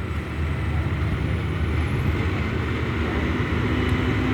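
Crane's diesel engine running steadily under load as it lifts a tree section, a low rumble with a steady hum joining about three and a half seconds in.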